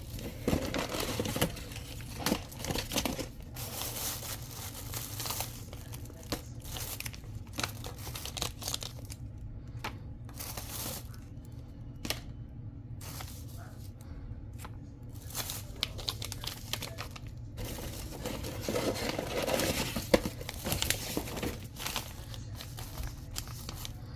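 Irregular crinkling and rustling of something being handled, in short uneven bursts, busiest about three quarters of the way through, over a steady low hum.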